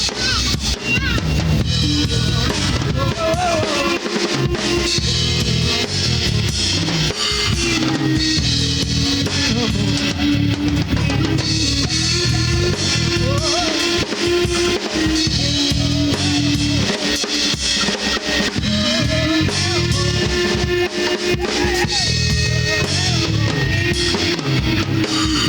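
Instrumental passage of a garage alternative rock band playing live: drum kit with bass drum and snare keeping a steady beat under guitars, on a raw live recording from cassette tape.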